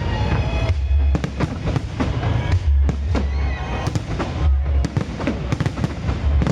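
Fireworks display: a rapid, continuous run of bangs and crackles over deep booms, with music playing along.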